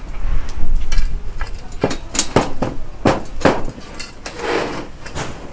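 Sheet-metal tabletops and steel folding-table frames clanking and knocking as they are set up, with several sharp metal knocks in quick succession. A short scrape of metal on metal follows about four seconds in.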